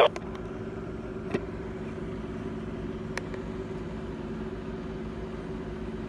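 Steady low electrical hum with a faint hiss, broken by two faint clicks, about one and three seconds in.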